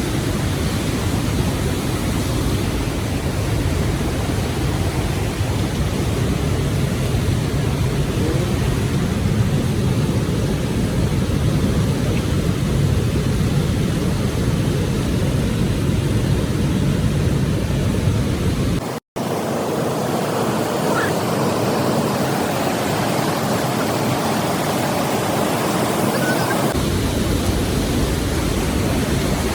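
Steady rushing of waterfall water, a full even roar with a deep low rumble. It drops out for an instant about two-thirds of the way through, then carries on thinner without the low rumble for several seconds before the rumble comes back.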